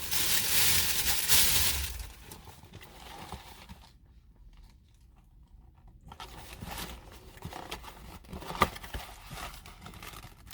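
Paper fast-food packaging crinkling and rustling as it is handled, loudest for the first two seconds. Softer rustles and a few clicks follow, with one sharp click near the end.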